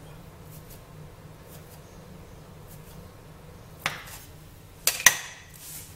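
Metal crinkle-cutter blade knocking on a granite countertop as it slices through a log of semolina dough: one sharp click about four seconds in, then two more close together a second later, over a faint low hum.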